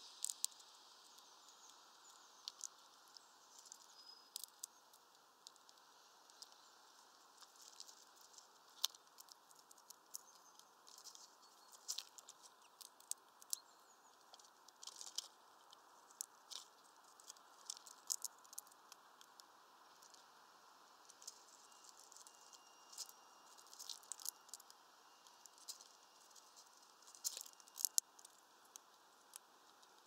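Eurasian red squirrel cracking and chewing sunflower seeds: irregular sharp clicks and crunches, sometimes several in quick succession, over a faint steady hiss.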